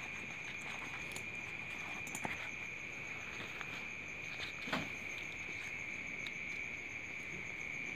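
Crickets chirping steadily in a high, pulsing trill. A few faint taps and rustles of small objects being handled come on top, the clearest nearly five seconds in.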